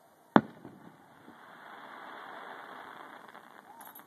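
Aerial firework shell bursting: one sharp, loud boom about a third of a second in, followed by a softer drawn-out noise that swells and fades over the next few seconds.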